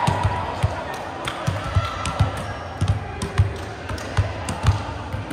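Echoing noise of a large hardwood-floored gym during volleyball play, with background voices and a steady low thump about twice a second.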